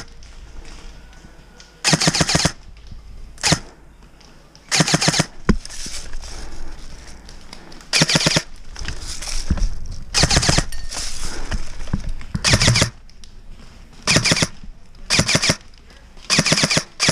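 Airsoft electric guns firing short full-auto bursts: about eight bursts, each under a second of rapid clicks, with pauses of one to three seconds between them.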